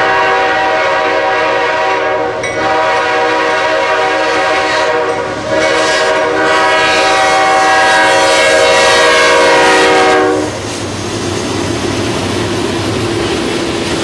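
Diesel freight locomotives' multi-chime air horn sounding three blasts, the last one the longest, as the train approaches and passes. After the horn stops, about ten seconds in, the rumble and clatter of freight cars rolling by on the rails.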